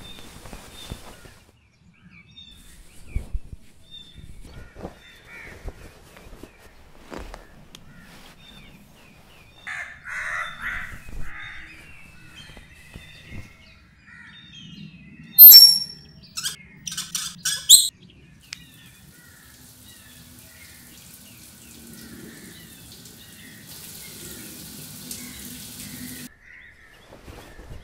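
Birds calling in the background, with scattered light knocks. About halfway through come a few sharp squeaky clicks, the loudest sounds. Then a shower sprays water in a steady hiss for several seconds before stopping.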